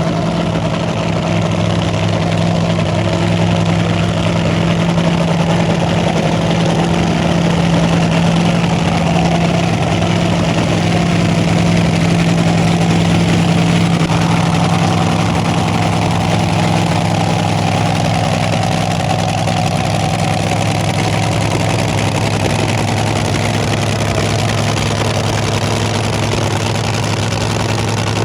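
An engine idling steadily, close and loud, with an even low hum that does not change.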